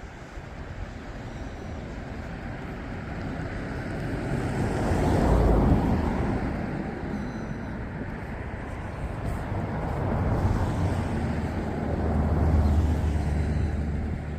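Large sea waves surging and breaking, the noise of the surf swelling to a peak about five seconds in and twice more later, with wind rumbling on the microphone, strongest near the end.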